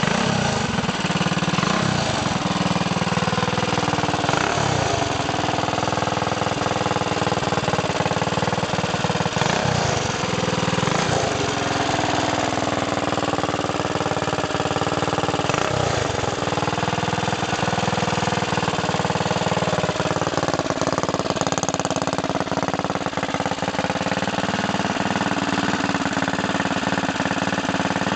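Harbor Freight Predator 212cc single-cylinder engine, built as a mild race engine with a hotter cam, ported head and high compression, running through a chrome exhaust. It is revved up and back down several times in the first half, then runs more steadily.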